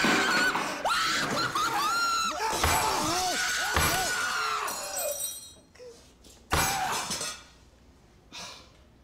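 People screaming in fright for several seconds while plates, glasses and cutlery clatter and crash on a table that is knocked. A louder single crash follows about six and a half seconds in, after the screaming stops.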